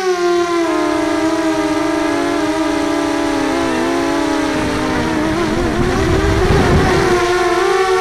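Electric motors and propellers of an FPV racing quadcopter whining. The pitch sags and wavers as the throttle changes, breaks up into a rough, rumbling rush about five to seven seconds in, then steadies again.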